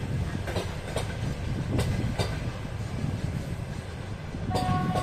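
Russian Railways passenger coaches rolling past with a steady low rumble, their wheels clicking over rail joints several times. Near the end a locomotive horn starts to sound, one held note.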